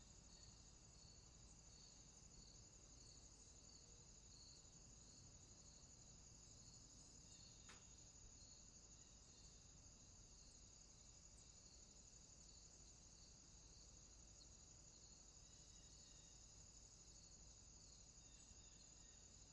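Faint warm-weather outdoor ambience of insects chirring: a steady high trill with a regular pulsed chirp repeating under twice a second. A single faint click about eight seconds in.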